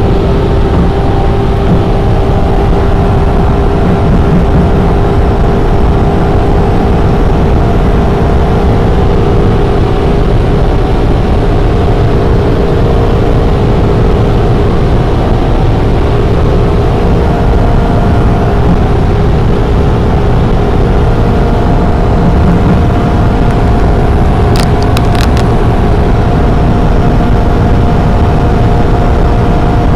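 Maserati heard from inside the cabin at close to top speed, about 300 km/h in sixth gear: a loud, steady drone of engine, wind and road noise with several unchanging tones, holding a constant flat-out speed.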